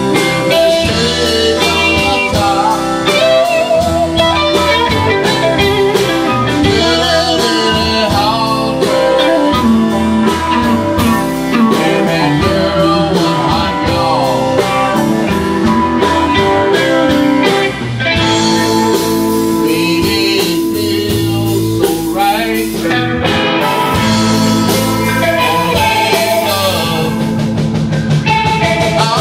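Live blues band playing: two electric guitars, an electric bass and a Gretsch drum kit.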